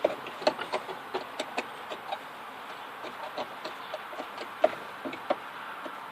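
A hand tool clicking and tapping on the parts around a 1998 Chevy Astro's ignition as a piece is taken off: an uneven run of short, sharp clicks, the sharpest about four and a half and five seconds in.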